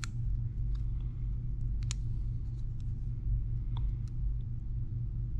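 Faint small clicks and ticks of tweezers handling the flex-cable connectors of an Apple Watch during screen replacement, a few seconds apart, over a steady low hum.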